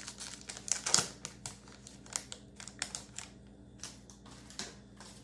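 Trading cards and a foil card-pack wrapper being handled: an irregular run of light clicks and crinkles, the loudest about a second in.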